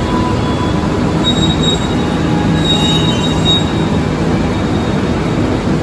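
A train running on steel rails: a steady rumble, with a faint high wheel squeal about one to three seconds in.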